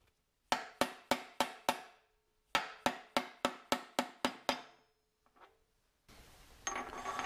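Soft-faced mallet tapping a new bearing race into a tractor transmission case: light, quick taps about four a second in two runs, six then about eight, with a short pause between and one faint tap after. Faint handling noise near the end.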